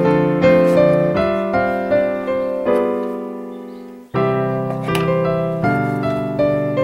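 Background piano music, a steady run of struck notes that decays almost to nothing about four seconds in, then starts again abruptly.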